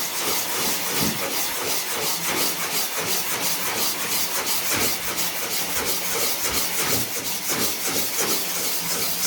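Dry sandpaper rubbed by hand in quick, steady strokes over cured gel coat on a fibreglass boat hull, levelling a run where the gel coat dripped. The gel coat has paraffin solution mixed in, so it sands down fast.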